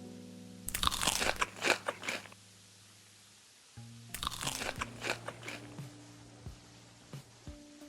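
Crisp food being bitten and chewed with loud crunches, in two bursts, about a second in and again at about four seconds, with a few lighter crunches after. Soft background music with low held notes plays underneath.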